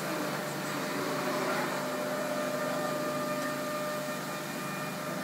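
MultiCam 5000 CNC router running during its automatic tool unload at shutdown: a steady mechanical hum with a faint whine that fades out about four seconds in.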